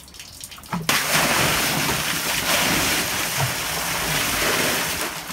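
Water poured from a large blue plastic container into an open drainage manhole, gushing and splashing onto the pipework in the chamber. It starts suddenly about a second in and runs steadily, easing slightly near the end: a flush to test whether the partly blocked drain downstream runs away freely.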